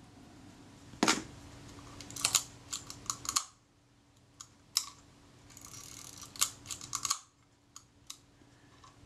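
Irregular light clicks and taps of small metal tools and parts against a stripped-down Kodak Retina Reflex IV camera body as it is handled, in scattered clusters, with a short stretch of rustling and clicking about six seconds in.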